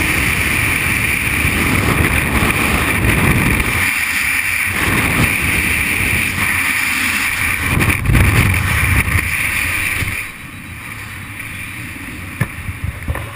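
Freefall wind rushing over a skydiver's camera microphone: a loud, steady, gusty roar that drops sharply about ten seconds in and turns much quieter.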